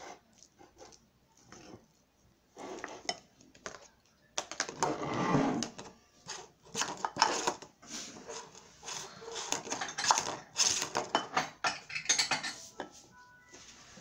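A spoon scraping and tapping against a bowl as a child eats, with irregular clinks and knocks on the table.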